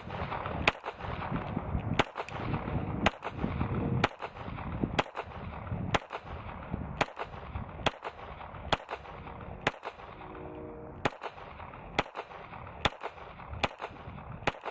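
Glock 17 pistol firing 9mm 125-grain reloaded rounds, slow aimed fire at about one shot a second, around fifteen shots in an unbroken string. The full magazine cycles with no misfeeds or stoppages.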